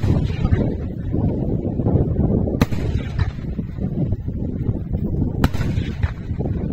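Daytime fireworks: aerial shells bursting overhead, with three sharp bangs about two and a half seconds apart over a continuous low rumbling of many other bursts.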